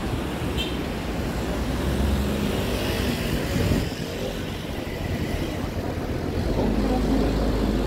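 Street traffic: a motor vehicle passing with engine and tyre noise that swells and cuts off about halfway through, then a steady low engine rumble near the end.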